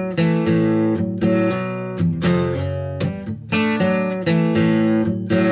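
Acoustic guitar strumming chords in a steady rhythm, about two strums a second, with no singing.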